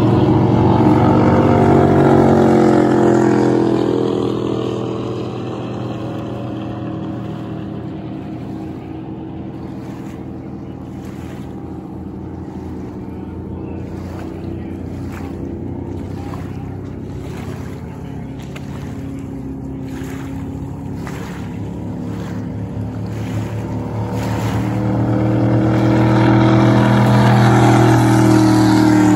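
Water ski race boats' engines running flat out as they pass. One boat goes by near the start, its pitch falling as it moves away, and a quieter drone follows through the middle. A second boat comes in close and gets loud near the end.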